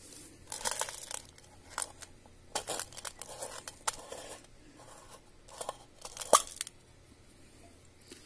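Metal screw-on lid of an airgun pellet tin being turned on and off the tin: a run of short metallic scrapes and rasps with a few clicks, the sharpest click about six seconds in.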